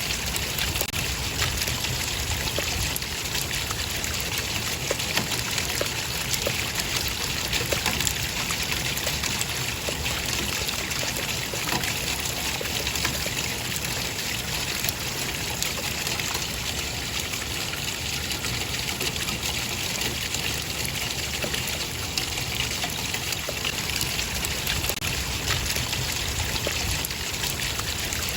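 Running water trickling and splashing steadily, an even rushing sound with small droplet splashes throughout.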